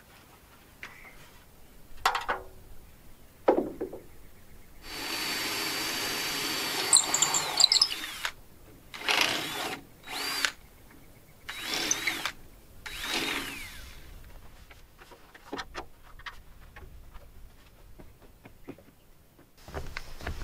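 Power drill running: one steady run of about three seconds, then four short bursts that each speed up and slow down, with knocks and handling clicks in between.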